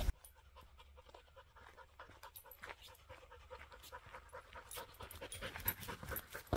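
Husky panting rapidly as it trots up to and past, faint at first and growing louder as it nears.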